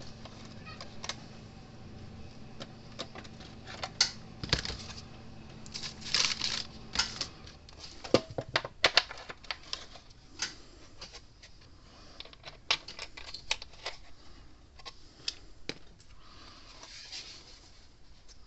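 Irregular clicks, taps and short scrapes of small tools and parts being handled on a workbench during hand repair work, with a faint steady hum that stops about seven seconds in.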